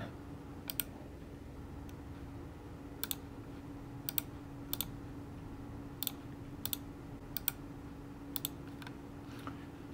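Sharp clicks from operating a computer, mostly in quick pairs, scattered about once a second, while the simulation view is adjusted on screen. A steady low hum runs underneath.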